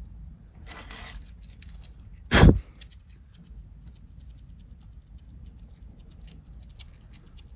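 Light clicks and clinks of a metal watch case and link bracelet being handled, with a short rush of noise about a second in and one loud thump about two and a half seconds in.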